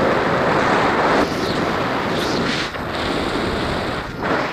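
Wind rushing over a camera microphone in paraglider flight, steady and a little louder in the first second.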